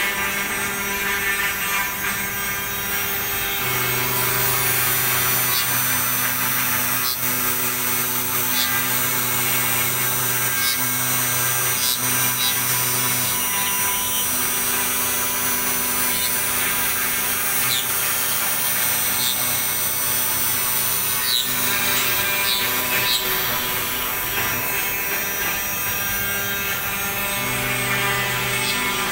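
CNC router spindle running at high speed, its bit cutting a jali lattice into an MDF sheet: a steady high whine over a dense cutting noise, with a lower hum that breaks off and restarts every second or two.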